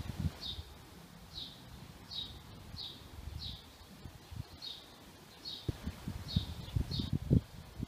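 A small bird calling, one short high chirp repeated over and over, about three every two seconds. Low thumps come and go underneath, mostly in the second half.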